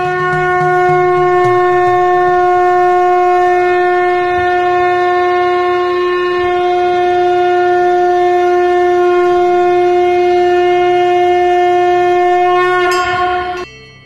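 Sangu, a conch-shell trumpet, blown in one long steady note for about thirteen seconds before cutting off near the end. Just as it stops, a temple bell is struck and rings on.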